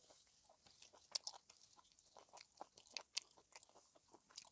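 Faint eating sounds from people eating roti and curry by hand: soft chewing and small scattered clicks.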